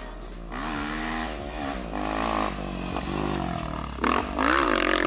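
Motocross bike engine revving, its pitch rising and falling again and again as the rider works the throttle and shifts on the track. It gets louder about four seconds in.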